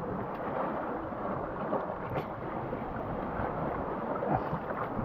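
Sea waves washing and splashing over rocks, with wind buffeting the microphone, and a few faint clicks of a knife on oyster shells, the clearest about two seconds in.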